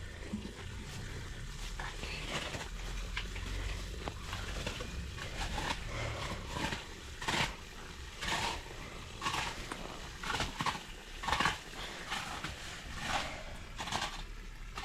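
Soil being scraped and heaped around garden plants: a string of short, rough scrapes, irregularly spaced about once a second.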